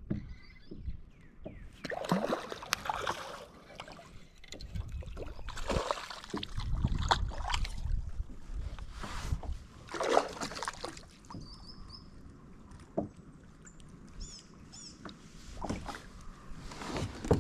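Irregular handling noise aboard a plastic sit-on-top kayak as a hooked bass is reeled in and lifted from the water: rustles, knocks and bursts of noise that come and go, with a few short high chirps about two-thirds of the way through.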